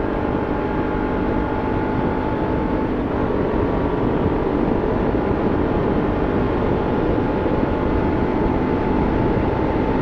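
Motorcycle riding at highway speed in sixth gear, heard through a helmet microphone muffled by a latex glove: steady wind rush and engine drone, with the engine's tones holding a near-constant pitch.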